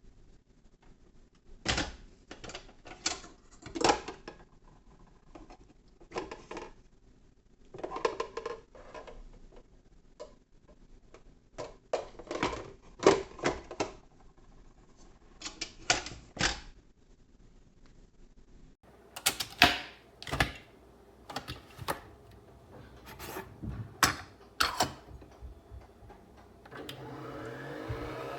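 Irregular clicks and clacks of hard plastic parts of a Nespresso Vertuo Next coffee machine being handled. Near the end its motor starts up with a rising whine.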